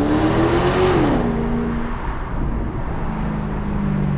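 BMW 650i's naturally aspirated 4.8-litre V8 accelerating, its note rising in pitch, then dropping sharply about a second in and holding a steady lower note.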